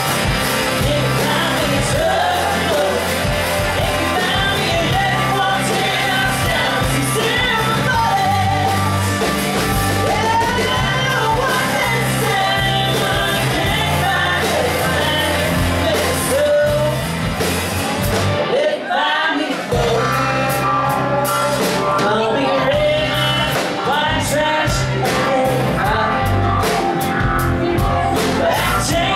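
Live country band with a woman singing lead over amplified electric and acoustic guitars, bass and drums. The low end drops out for about a second roughly two-thirds of the way through, then the full band comes back in.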